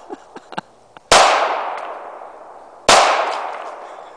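Two pistol shots a little under two seconds apart, each a sharp crack trailing off in a long echo.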